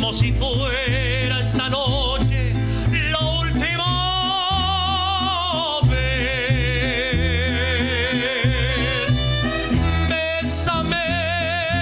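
Mariachi band playing: a melody of long held notes with wide vibrato, some gliding up and down, over a changing bass line.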